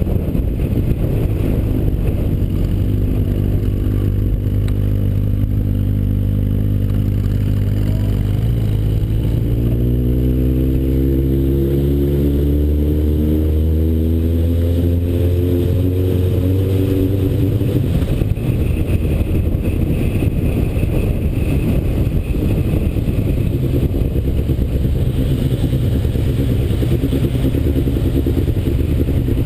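Yamaha XJR motorcycle's inline-four engine running under way, with wind noise on the microphone. About eight seconds in the engine note dips, then rises steadily for several seconds as the bike accelerates, before easing off again.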